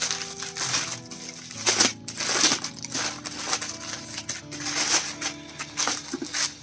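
A white plastic courier mailer bag crinkling in rapid irregular rustles, loudest about two seconds in, as it is torn and pulled open by hand. Background music with held notes plays underneath.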